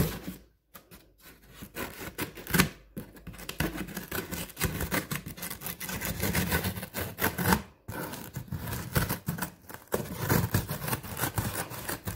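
Small scissors cutting through packing tape on a cardboard box: a run of snips and scrapes as the blades work along the tape, with brief pauses about half a second in and near eight seconds.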